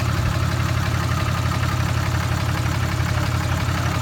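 Dodge Ram 3500 pickup's engine idling steadily.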